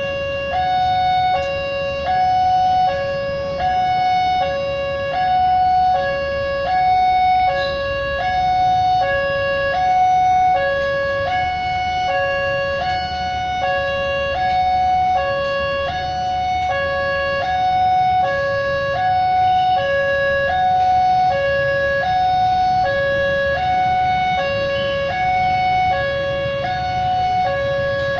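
Railway level-crossing warning alarm sounding a steady two-tone electronic signal, high and low notes alternating a little over half a second each, the signal that a train is approaching.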